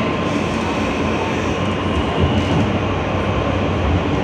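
Steady running rumble of an Alstom-propulsion R160 subway car, heard from inside the car as it runs through a tunnel: wheels on rail and car noise with a faint steady whine.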